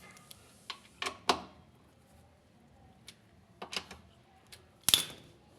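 A few sharp clicks and knocks from hand tools and the washing machine's metal parts being handled, loudest about a second in and again near the end.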